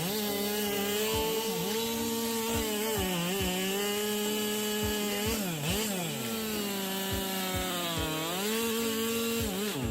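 Chainsaw running at high revs while cutting through wood. Its engine pitch sags three times under the load of the cut and recovers each time.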